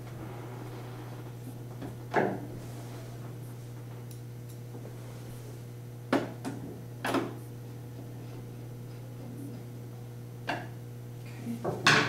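Screwdriver working the screws of an Epson R2000 printer's plastic rear panel: scattered sharp clicks and knocks of tool against plastic, the loudest cluster near the end, over a steady low hum.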